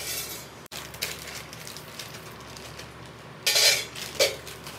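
Nuts poured from a plastic packet onto a steel plate: crinkling plastic and small hard pieces clattering on metal, in a few short bursts, the loudest about three and a half seconds in and another just after four seconds.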